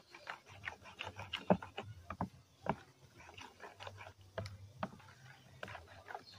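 Wooden spoon stirring a thick breadfruit mixture in a plastic bowl: irregular soft knocks and clicks, several a second.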